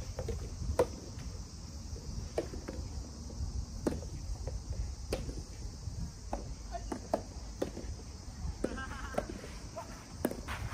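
Soft tennis rally: rubber balls struck by rackets with sharp pocks every second or so, over a steady high chirring of insects.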